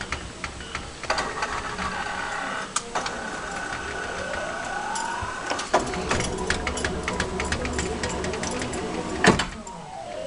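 Claw machine running a game: the claw's motors whir with many clicks as the claw moves, over electronic game tones. A tone rises in pitch about four seconds in, and there is a sharp loud click near the end.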